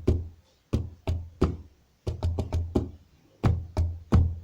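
Hand striking the centre of a wooden table in a repeating surdo-style rhythm: about a dozen deep, low thuds in short groups.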